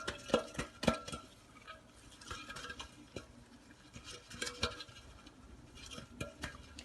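A floured cake pan being turned and tapped to spread flour over its greased sides: light, irregular knocks and clicks, several close together in the first second, then a few more spaced out.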